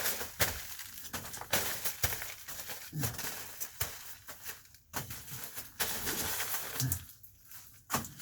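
Rustling and crinkling of Reflectix foil-bubble insulation and tape being handled and pressed on, with many sharp clicks and three brief low sounds that fall in pitch.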